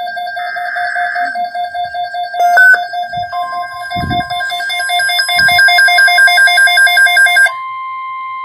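Emergency Alert System tones between two alerts: a short burst of digital header data about half a second in, over a pulsing, ringing electronic alert tone that gets louder about halfway through. Near the end a steady attention tone takes over.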